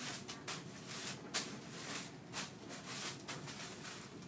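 Faint, irregular rustling and light taps, a few short strokes a second.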